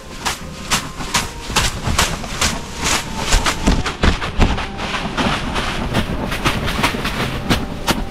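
Leafy birch and oak bath besoms (veniks) swishing through the air and slapping on wet bare skin in quick repeated strokes, about three or four a second, over a constant leafy rustle.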